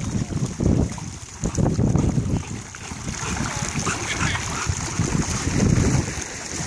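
Wind buffeting the microphone over splashing, trickling pool water as a dog wades through the shallow water.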